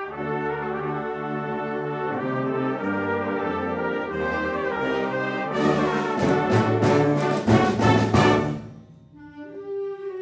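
Concert band playing, led by brass in sustained chords. About halfway through, a run of sharp percussion hits joins a loud full-band passage, which breaks off suddenly about nine seconds in before a softer held note begins.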